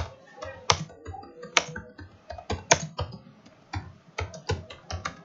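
Computer keyboard being typed on: a run of key clicks at an uneven pace, a few struck noticeably harder than the rest.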